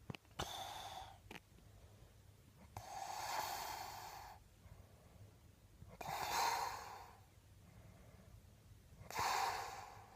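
A sleeping man snoring: four noisy breaths, each about a second long, coming roughly every three seconds.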